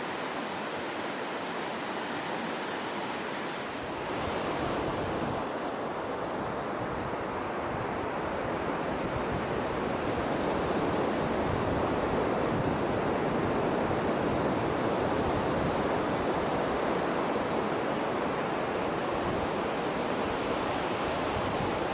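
Steady rush of flowing water, an even hiss-like roar. About four seconds in it changes to a louder, fuller rush with more low rumble.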